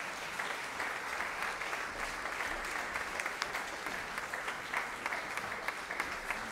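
Steady applause from many people clapping.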